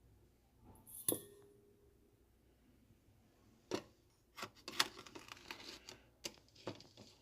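Kitchen handling sounds. A light clink about a second in rings briefly. From the middle on come several sharp clicks and a spell of rustling and scraping as utensils and ingredients are handled.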